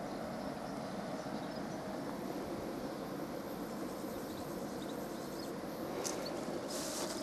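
Steady mechanical hum of refrigeration machines running inside a station building, with a few brief rustles near the end.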